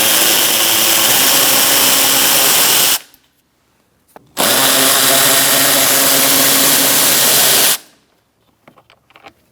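Cordless power tool spinning a 7 mm socket, running two bolts out of the bottom of a door panel. It runs steadily twice: the first run stops about three seconds in, and the second starts a second later and lasts about three seconds.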